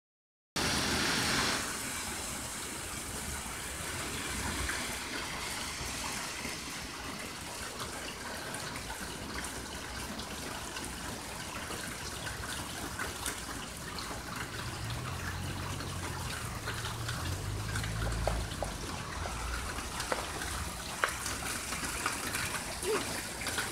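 Rainwater running steadily out of a gutter downspout and splashing onto a puddle on wet pavement, with a few small splashes and knocks near the end as a toddler's hands and toy go into the stream.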